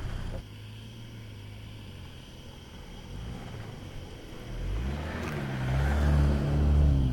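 2024 Toyota Land Cruiser's 2.4-litre turbocharged four-cylinder engine working off-road. It holds a steady low hum at first, then the revs rise from about four and a half seconds in, and it is loudest near the end as the SUV climbs through sand and passes close.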